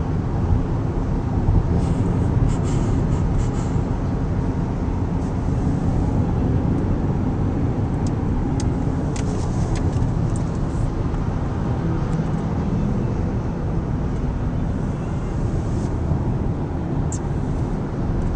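Steady road and engine noise heard inside a car's cabin while it drives at highway speed, with a few faint clicks.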